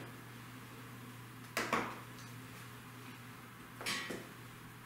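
Marker pen writing on a whiteboard: two short spells of strokes, about a second and a half in and about four seconds in. A faint steady hum lies under them.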